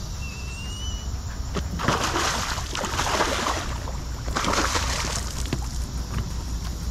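Water sloshing and splashing as a landing net is swept through shallow water beside a kayak, in two bursts: a longer one about two seconds in and a shorter one around four and a half seconds in.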